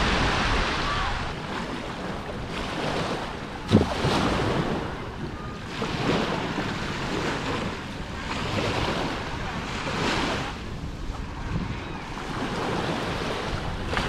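Small Black Sea waves washing onto a sandy beach in repeated swells, with wind buffeting the microphone. There is a short thump about four seconds in.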